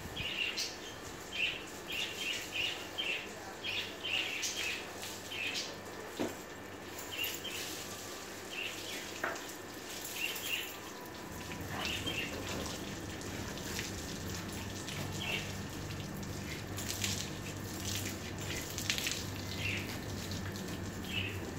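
Garden hose with a spray nozzle spraying water onto a car's body, a steady hiss and splash. A bird chirps again and again over it through the first half, and a low steady hum comes in about halfway.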